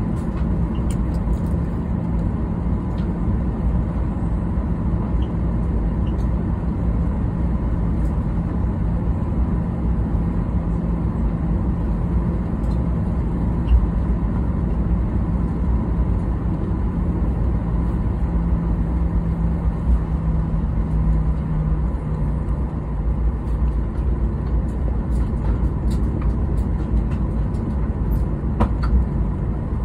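Airliner cabin noise while taxiing: the jet engines run at low thrust under a steady low rumble. A hum in it drops a little in pitch about two-thirds of the way through.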